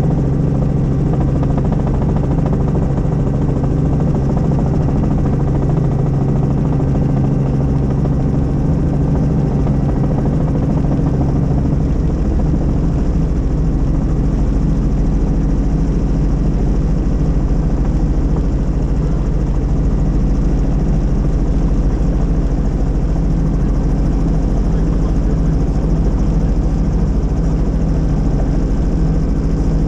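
Helicopter running steadily, a continuous low drone of rotor and engine; its low tones shift slightly about twelve seconds in.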